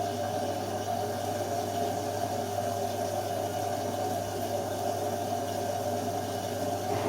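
Bosch washing machine running with its repaired shock absorbers: a steady hum over a rushing, watery noise.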